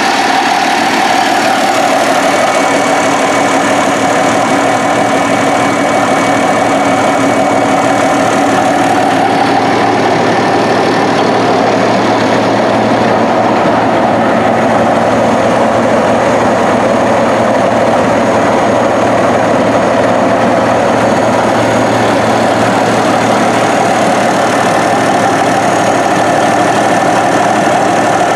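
Caterpillar D9 bulldozer's diesel engine idling steadily.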